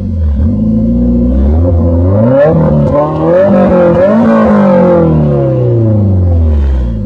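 BMW E30 M3's S14 four-cylinder engine revving through its exhaust: the revs climb for about two and a half seconds, dip briefly, climb to a higher peak about four seconds in, then fall back to idle near the end.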